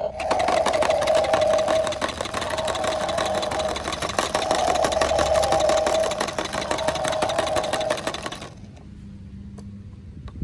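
Battery-powered toy transport truck's engine sound effect, set off by a button on the cab: a fast chattering engine noise over a steady hum. It starts just after the press and cuts off after about eight seconds.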